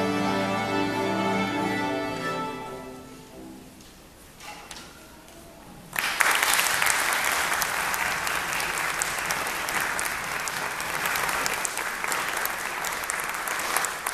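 A youth string orchestra of violins, violas, cellos and double basses holds its final chord, which fades away over about three seconds. After a short hush, audience applause starts suddenly about six seconds in and carries on.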